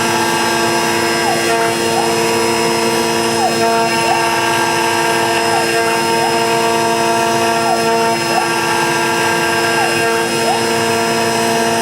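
CNC router carving a laminated Karri hardwood neck blank: a steady machine whine from the spindle and drive motors, with one tone that slides up and down about every second as the machine travels back and forth along its passes.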